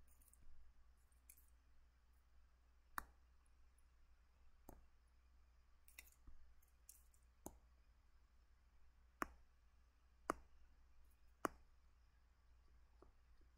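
Sparse sharp clicks from drawing at a computer, about half a dozen spaced a second or two apart, with a few faint brief scratchy sounds over quiet room tone.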